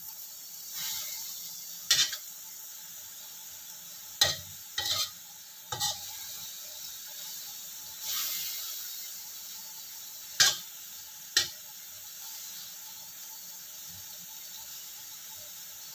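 Greens and sausage sizzling in a wok as a spatula stirs them, with the spatula knocking sharply against the wok about six times.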